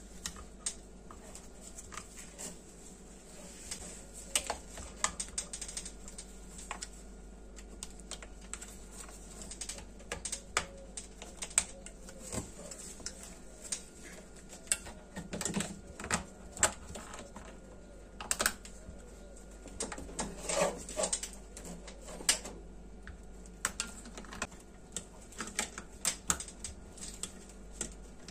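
Irregular small clicks, taps and scrapes of needle-nose pliers and a wire spring hose clamp being worked onto a rubber hose on a dishwasher circulation pump, busiest in the middle.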